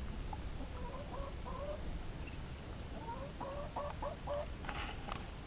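Chicken hen clucking: a few short calls, then a quicker run of about five near the end.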